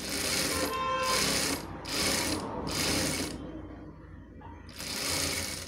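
Industrial lockstitch sewing machine stitching cloth in four short runs, the first the longest at about a second and a half, starting and stopping as the fabric is guided.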